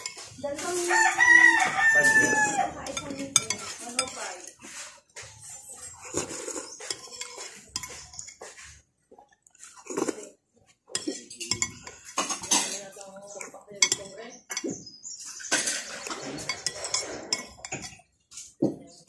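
A rooster crows once, about a second in, the loudest sound here. A spoon clinks and scrapes against a bowl throughout.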